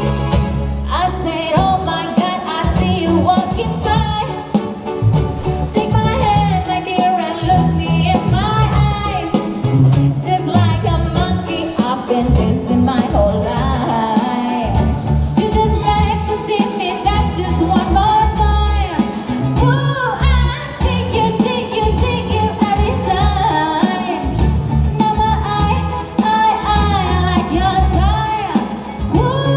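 Live amplified busking: a woman sings a melody over ukulele and electric bass guitar, with a steady rhythm and prominent bass notes.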